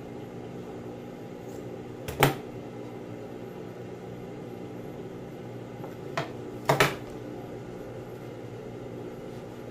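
Large metal tailor's scissors knocking down onto the sewing table: a sharp knock about two seconds in and a quick cluster of knocks near seven seconds, over a steady low hum from the sewing machine.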